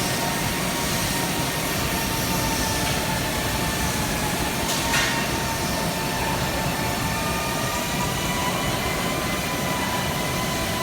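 Steady machinery noise of a workshop with a few faint, high, steady whines. There is a short click about five seconds in.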